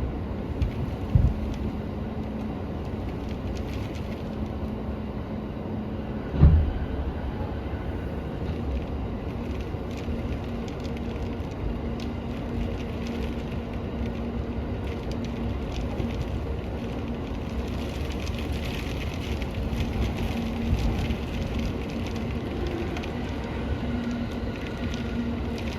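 Interior running noise of a JR Musashino Line electric train moving slowly under a storm speed restriction: a steady rumble with a constant low hum. There is a short low thump about a second in and a stronger one about six and a half seconds in.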